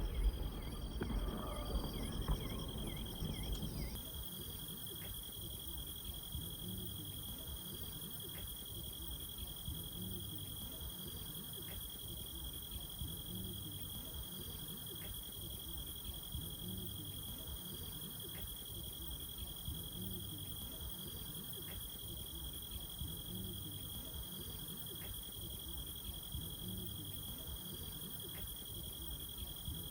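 Insects trilling in a steady, unbroken high chorus at night. For the first few seconds the tail of fireworks crackle and crowd noise is still fading out, then it stops suddenly and only the insects remain.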